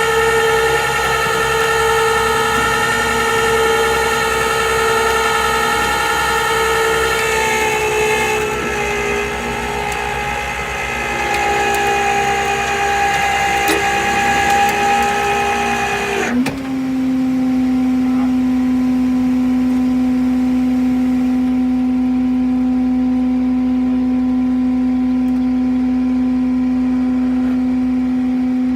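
A steady mechanical whine made of several pitched tones that shift in pitch partway through. About sixteen seconds in it cuts off abruptly and is replaced by a lower, steady hum.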